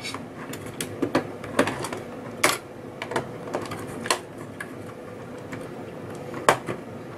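Irregular sharp plastic snaps and clicks as a metal pry tool levers up a calculator's circuit board and breaks the hot-staked plastic rivets holding it down. The clicks come thick in the first four seconds, with a louder one near the end.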